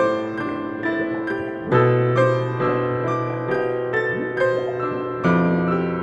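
Background piano music: a steady run of notes, about two a second, over held low bass notes that change twice.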